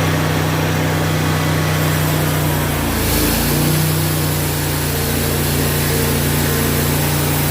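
Portable band sawmill's gas engine running steadily. About three seconds in, its pitch briefly dips and wavers, then settles back.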